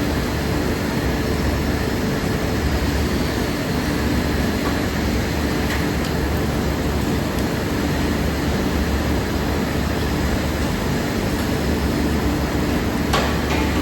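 Steady drone of industrial machinery: an even, fan-like rush over a low hum, with a couple of faint clicks near the end.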